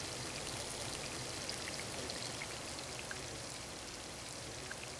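Barracuda steaks deep-frying in hot oil in a cast-iron skillet: a steady sizzle with light, scattered pops.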